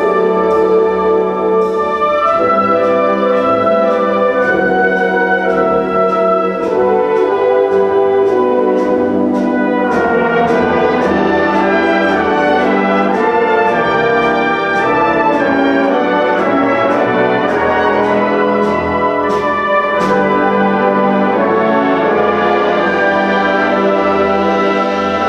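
Concert band playing: brass-led ensemble with trumpets, trombones and horns holding and moving through chords over steady percussion strokes.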